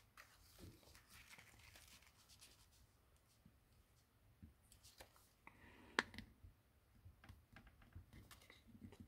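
Faint scraping and scattered clicks of a pry spatula being worked into a heated smartphone's adhesive, with a sharper click about six seconds in.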